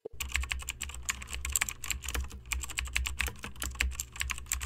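Rapid typing on a computer keyboard, many keystrokes a second, over a steady low hum.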